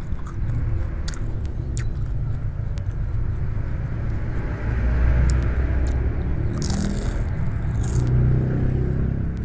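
Close-miked eating: a person biting and chewing food, with wet mouth clicks and smacks, over a steady low rumble. Two brief hissy smacks come about seven and eight seconds in.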